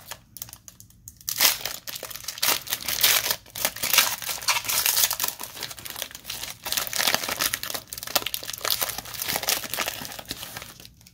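Foil wrapper of a Panini Chronicles football card pack being torn open and crinkled by hand: dense crackling that starts about a second in and stops shortly before the end.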